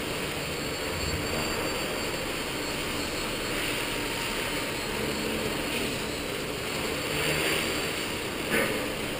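Skyartec Wasp V3 electric RC helicopter flying, its motor and rotor giving a steady high whine over a broad hiss. A short sharp click comes near the end.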